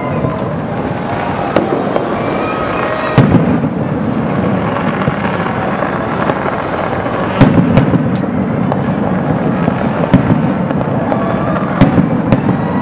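Fireworks display going off: a continuous rumble of bursts and crackle, with sharp bangs standing out several times, about three seconds in, twice around seven to eight seconds, and again near the end.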